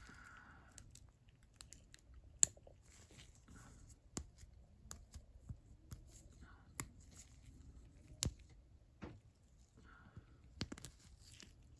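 Sharp small metal clicks and scrapes as a retaining ring is worked into the groove in the head of a Challenger by Proto 1260 3/8-inch drive ratchet, pressing against its spring-loaded pawl mechanism, with nitrile gloves rustling. The two loudest clicks come about two and a half seconds in and about eight seconds in.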